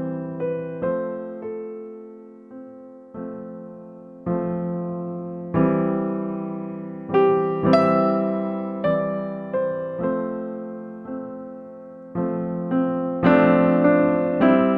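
Background music: a slow, gentle electric piano playing soft chords and single notes, each note fading before the next.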